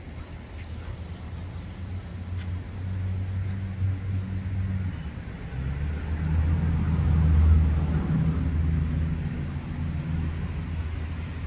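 A low engine hum that swells to its loudest about seven or eight seconds in, then eases off somewhat.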